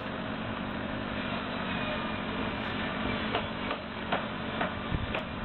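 Small electric motor of a homemade toy conveyor belt running steadily with a whirring hum as the belt carries sand up into a toy dump truck, with a few light clicks in the second half.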